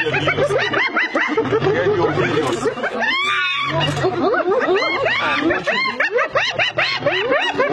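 Several spotted hyenas giggling and cackling at once, a dense run of short rising-and-falling cries, typical of an excited clan contesting a lion's kill. A low rumble runs underneath.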